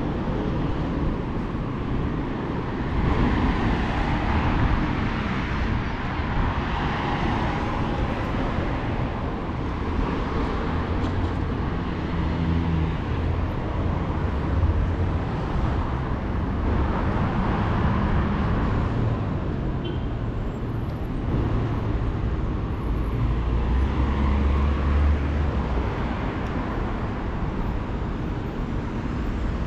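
Road traffic on a busy city street: cars passing one after another, the steady noise swelling and easing every few seconds.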